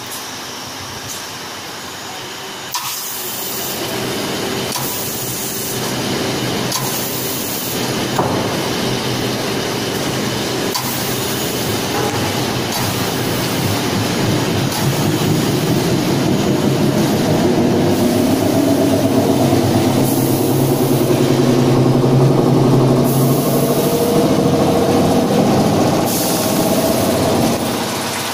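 Warping machine running, winding warp yarn onto its beam with a steady mechanical hum. It gets louder a few seconds in and again about halfway, then drops back just before the end.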